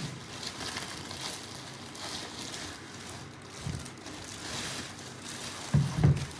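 Soft rustling and handling of shoe-box packaging as it is opened, with a few soft bumps.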